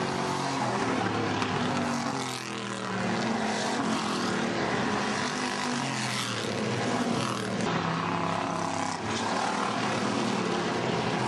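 A pack of hobby-class stock cars racing on a paved oval, several engines at full throttle, their pitch rising and falling as the cars sweep past. The sound dips briefly twice, about two seconds in and again near the end.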